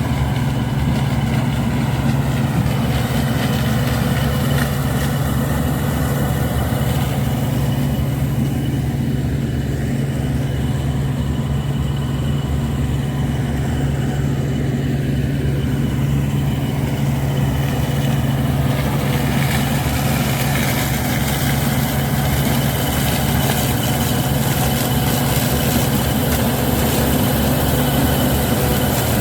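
CLAAS Dominator combine harvester running steadily: a low, even engine drone with a thin high whine over it.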